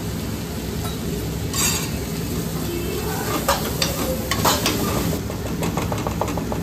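Chopped onion, capsicum and tomato sizzling in a steel kadai while a steel spoon stirs them, scraping and clinking against the pan now and then, with a quick run of scrapes near the end.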